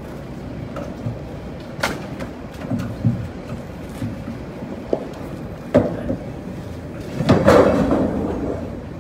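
Scattered knocks and metal clanks from the tie-downs holding a car in a shipping container being worked loose, with a longer, louder clatter about seven seconds in.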